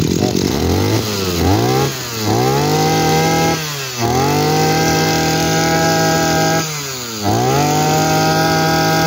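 Robin NB21 21cc two-stroke brush cutter engine being revved. The throttle is opened and held at high revs, with the engine note dropping back briefly about two, four and seven seconds in and climbing straight back up each time.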